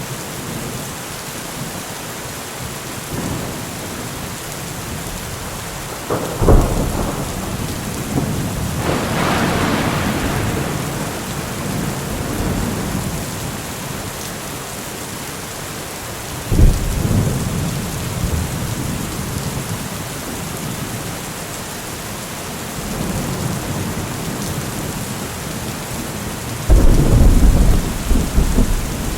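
Steady rain falling, with thunder: a sudden crack about six seconds in that rolls into a rumble, another clap past the middle, and a loud low rumble near the end.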